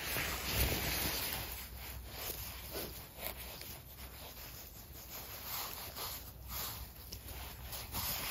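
Gloved hand rustling through grass and moss while picking funnel chanterelles: irregular rubbing and scraping, in short uneven strokes.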